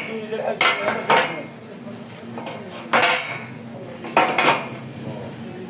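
Sharp metal-on-metal clanks, about five, each with a brief ring: two close together near the start, one in the middle and two in quick succession a little after four seconds. A steady low hum runs underneath.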